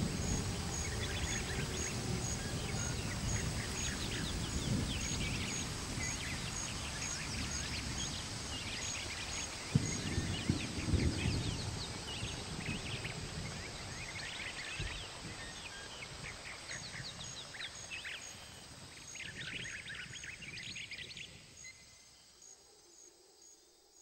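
Rainforest nature ambience: many birds chirping over a low rumble and a steady, high, rhythmic pulse. The rumble swells about ten seconds in. Then it all fades out near the end.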